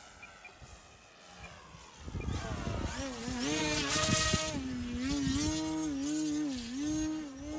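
Electric motor and propeller of an E-flite Timber X RC plane on floats, whining as the throttle comes up about two seconds in, its pitch dipping and recovering several times as the throttle is worked. Low wind rumble on the microphone underneath.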